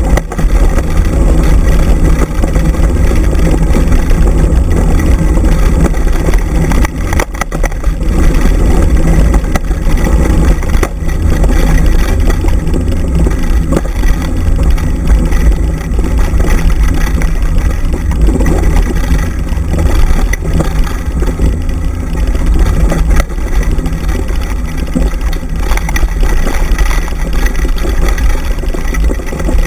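Loud, constant low rumble of wind buffeting the microphone and the wheels of a dog-pulled dryland scooter rolling over a rough dirt track.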